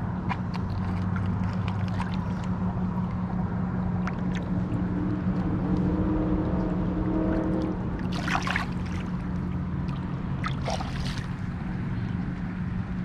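A steady low engine hum runs throughout, like a motor running on the water. Two short, hissy bursts of noise come about eight and eleven seconds in.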